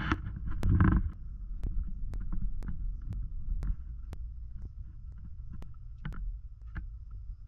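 Low rumble of a Ram pickup truck rolling slowly over a rough dirt road, heard inside the cab, with a louder jolt about a second in. A light, regular ticking sounds about twice a second.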